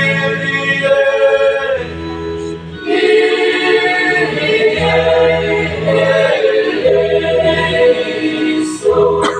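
Mixed choir of high-school boys and girls singing in parts: sustained chords in long phrases, with a short break between phrases about two and a half seconds in.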